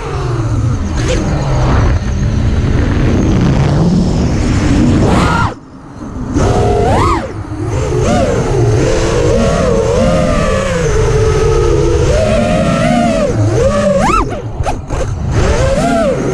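FPV quadcopter's electric motors and propellers whining, the pitch rising and falling with the throttle over a steady rush of wind and propeller wash. The whine cuts out briefly about five and a half seconds in and stutters a few times near the end, as the throttle is chopped.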